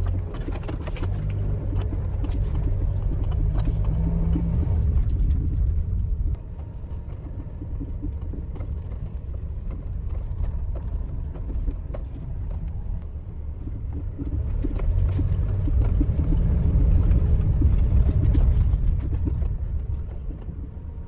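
Motor vehicle running, a steady low rumble that swells, eases off about six seconds in, swells again for several seconds near the end, then fades.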